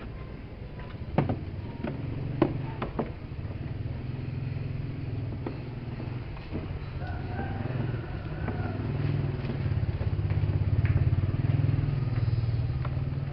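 A low, steady motor rumble that grows a little louder toward the end, with a few sharp knocks in the first three seconds.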